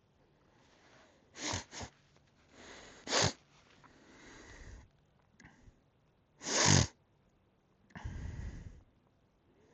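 A dog sneezing several times in short, sharp bursts, the loudest about two-thirds of the way in, with sniffing between.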